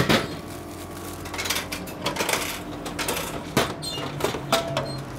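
Drink vending machine dispensing a can: a loud clunk as the can drops into the tray right at the start, then a run of clattering knocks and clicks as the can is pulled out of the tray.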